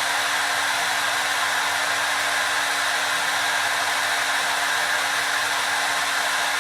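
Hair dryer running steadily: an even blowing hiss with a faint steady hum beneath it.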